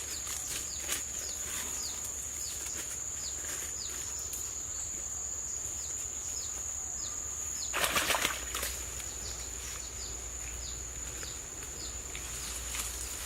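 Outdoor ambience: a steady high-pitched drone, a short falling chirp repeating over and over, and a brief noisy burst about eight seconds in.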